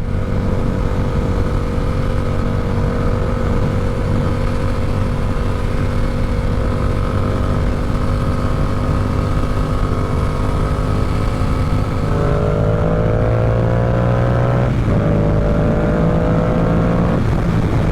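Yamaha R7 motorcycle engine running at a steady pitch heard from the rider's position. About twelve seconds in, the engine note changes and climbs, with a brief break about fifteen seconds in, then climbs again before dropping near the end.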